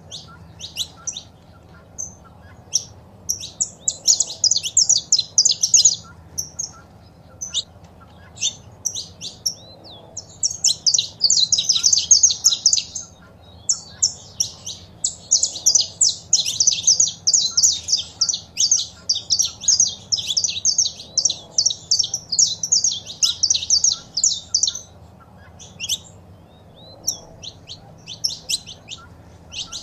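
Saffron finches calling and singing: scattered sharp, high chirps between long runs of rapid notes, the longest lasting about ten seconds in the middle.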